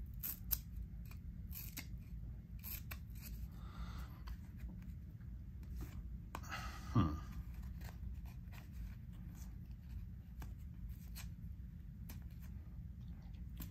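Glossy trading cards being handled one at a time: a scatter of small clicks and snaps as the sticking cards are separated and flipped, with one louder brushing stroke about seven seconds in, over a low steady hum.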